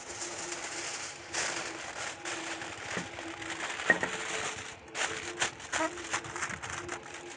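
Aluminium foil being torn and crumpled by hand, a continuous crinkling rustle with a run of sharper crackles about five seconds in.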